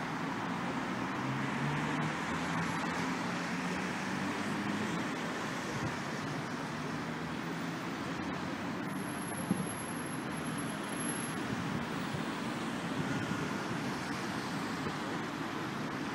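Road traffic passing on a multi-lane city street: a steady rush of tyres and engines, with one vehicle's engine note standing out over the first few seconds. A single short knock about nine and a half seconds in.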